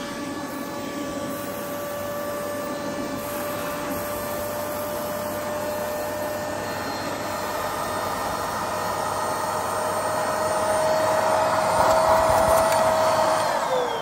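Electrolux handheld vacuum cleaner's motor running with a steady whine while the hose nozzle sucks up sawdust, the rushing air growing louder toward the end; the hose blocks with sawdust and the vacuum loses suction. Just before the end the motor winds down, the whine falling in pitch.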